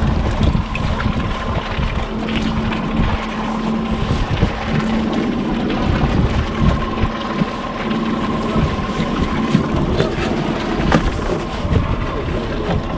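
Outboard motor running with a steady hum, with wind noise on the microphone.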